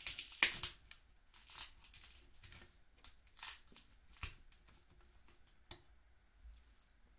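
Steamed snow crab legs being snapped at the joints and the meat pulled out of the shells: a string of irregular cracks and crunches of shell, loudest about half a second in.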